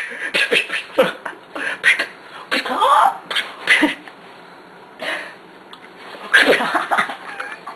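A teenage boy making silly beatbox-like mouth noises: a string of short pops and bursts, with a sliding vocal squeal about three seconds in and a loud burst near the end.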